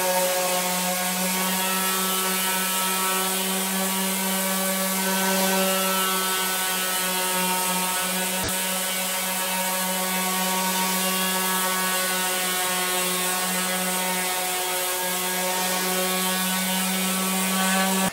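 Random orbital sander running steadily with a constant hum as it sands a bare oak desktop with 120-grit paper.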